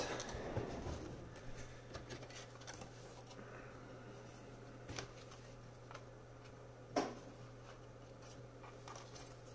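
Faint handling noise: light clicks, taps and rustling as a replacement laptop keyboard with its metal backing plate is fitted into the laptop's plastic top case, with a sharper click about five seconds in. A steady low hum runs underneath.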